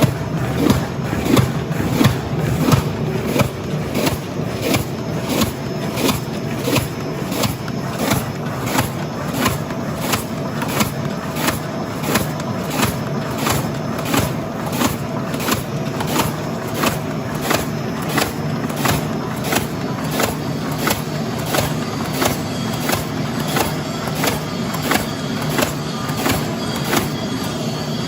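Corrugated-cardboard mini-slotter running, clacking about twice a second in an even rhythm over a steady machine hum as it feeds and slots board strips.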